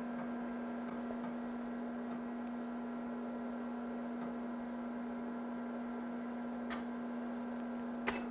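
IBM XT/286 computer running with a steady electrical hum. Two short key clicks come near the end.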